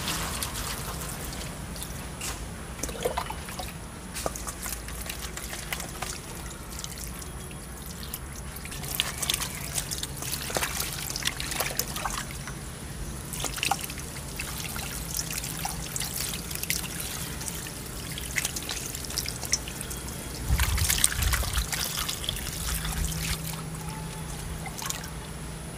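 Water trickling and splashing as cut fish pieces are washed by hand in a steel colander, with irregular wet clicks and squishes of fingers rubbing the fish. A louder burst of splashing comes about 21 seconds in.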